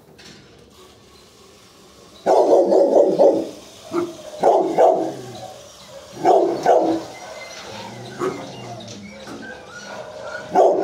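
Dog barking in four or five short bouts of a few barks each, the first starting about two seconds in and the last near the end.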